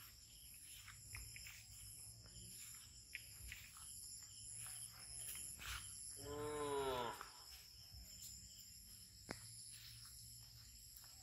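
Steady high-pitched drone of insects, with one loud drawn-out animal call a little past the middle, about a second long and falling in pitch at the end.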